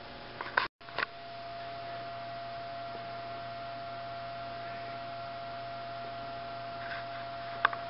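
Steady electrical hum with a thin steady whine above it, as workshop room tone. The sound drops out for an instant just under a second in, with a click on either side, and a single sharp click comes near the end.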